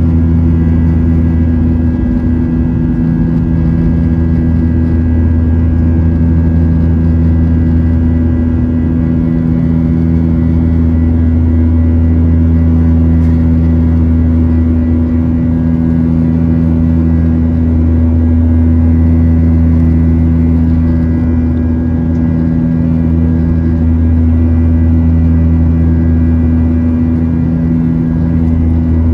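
Boeing 737-900ER cabin noise during the climb after takeoff: the CFM56-7B turbofans' loud, steady drone heard from a seat over the wing, with deep hums that swell and ease slowly every few seconds.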